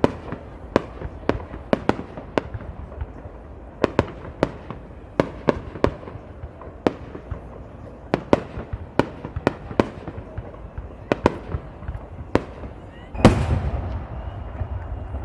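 Fireworks display: shells bursting in sharp, irregular bangs, roughly one to two a second. About thirteen seconds in comes one louder burst with a long rumbling tail.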